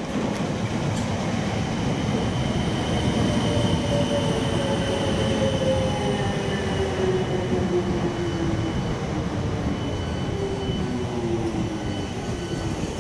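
South Western Railway electric multiple-unit train running into the platform, with wheels rumbling on the rails and a whine that falls steadily in pitch as the train slows.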